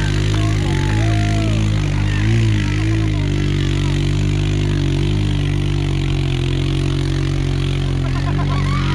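A vehicle engine running steadily at a low, even idle, with a slight waver in pitch about two to three seconds in.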